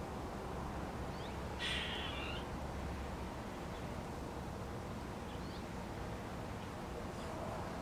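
Garden birds calling over a steady low background rumble: one louder, rough call a little under two seconds in, and a few faint short chirps scattered through.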